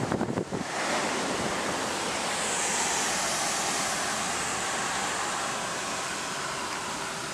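Steady rushing wind and road noise of a car driving, heard from inside the cabin, settling in about a second in.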